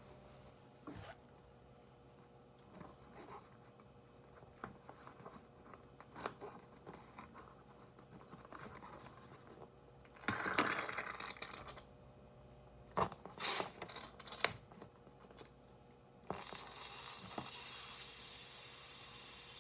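Small handling noises from hands working with the balloon and fermenter: scattered clicks and scrapes, with a louder stretch of rustling and rubbing about ten seconds in and a few sharper clicks after it. About sixteen seconds in a steady hiss starts and keeps going.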